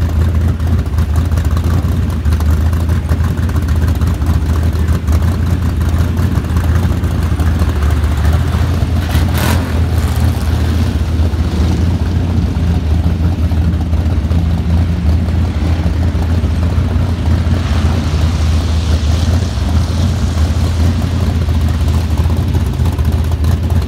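A pack of factory stock race cars running flat out on a dirt oval, their engines blending into one steady, loud drone. There is a short burst of noise a little under ten seconds in, and a rise of rushing hiss as the cars come by again near the end.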